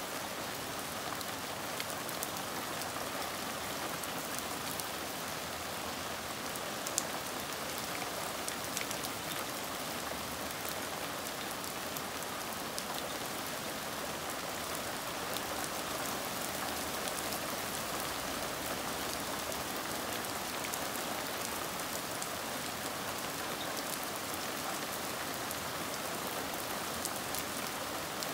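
Hard, steady rain falling on leafy plants, lawn and wooden boards, an even hiss with many small drop ticks through it.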